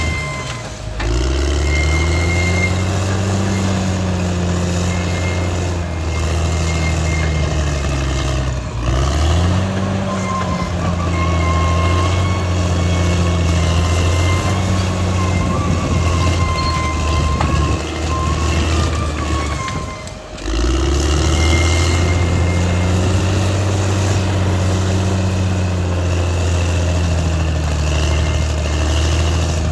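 Caterpillar D6R XL bulldozer's diesel engine working under load, its note dipping and climbing back three times, about a second in, around nine seconds and around twenty seconds. A thin high whine runs over the engine.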